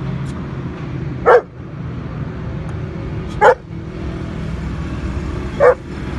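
Male stock-coat German shepherd barking three times, single barks about two seconds apart.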